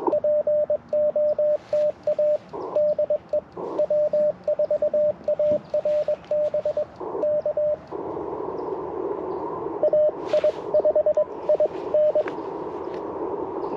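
Morse code on a single steady pitch: the Icom IC-705's sidetone as the operator sends with his paddle for about eight seconds. Then the receiver's band-limited hiss comes up, and an answering station's Morse signal is heard in it for about two seconds.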